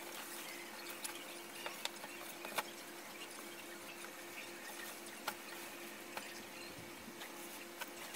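Faint rustling of bedsheets and a duvet being pulled and smoothed on a bed, with a few soft isolated clicks, over a steady low hum.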